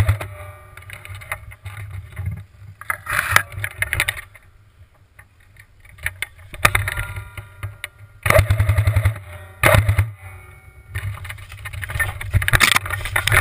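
JG Steyr AUG airsoft electric gun firing several bursts of rapid shots. The longest burst, nearly a second of evenly spaced shots, comes about eight seconds in. A low rumble runs underneath.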